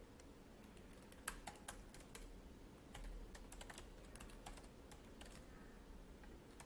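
Faint typing on a computer keyboard: scattered keystrokes at an uneven pace, with short pauses between bursts.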